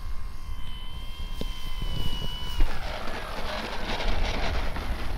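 Electric motor and propeller of a radio-controlled warbird model giving a steady high whine that cuts off abruptly about two and a half seconds in. Wind rumbles on the microphone throughout.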